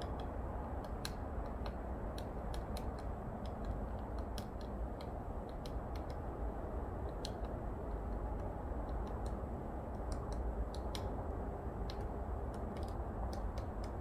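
Woodpecker pecking at a tree trunk: single sharp taps at uneven intervals, one to three a second, typical of foraging rather than drumming. A steady low rumble runs underneath.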